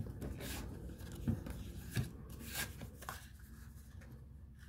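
Paper and card sample sachets rustling and sliding on a tabletop as they are handled, with two soft thumps about a second and two seconds in.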